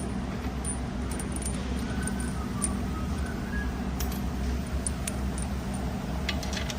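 Bolts being picked up and started into a transmission's torque converter housing: scattered light metallic clinks and taps, with a quick cluster near the end, over a steady low hum.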